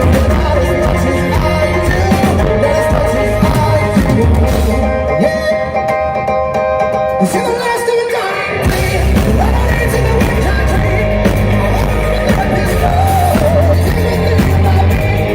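Live rock band playing loud and amplified, with a lead singer. The bass and drums drop out for a few seconds in the middle, then come back in.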